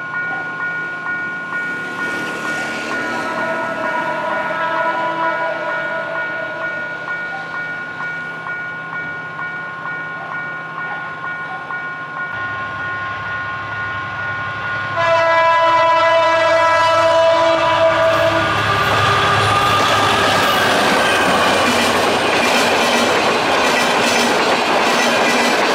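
Horn of an EMD GT22 diesel locomotive hauling a long-distance passenger train. It sounds one long chord early on, then a much louder, closer blast of about three seconds midway through. Then the passenger cars rush past at speed, their wheels clattering over the rail joints.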